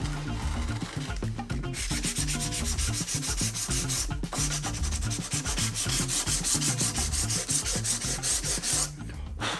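Hand sanding with a sanding sponge on the wooden edge banding of a cabinet top: quick, even back-and-forth scratchy strokes, starting about two seconds in, pausing briefly about four seconds in, and stopping near the end.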